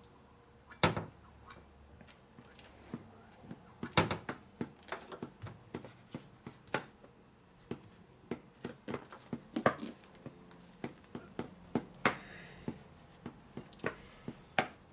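Scattered clicks and light knocks of metal tools and engine parts being handled on a workbench, with a short rustle near the end.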